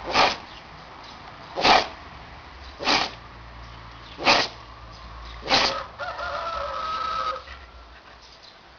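An animal sneezing five times in a row, roughly one sneeze every second and a half, followed by a held, pitched call lasting about a second and a half.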